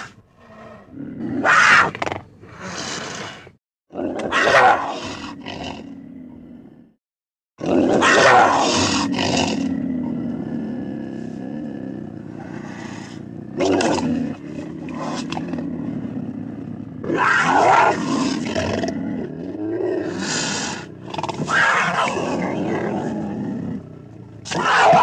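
Big-cat vocal sound effects voicing a film cheetah: a string of short loud calls spliced together, cut off abruptly twice in the first seven seconds, then a longer continuous stretch with several louder calls.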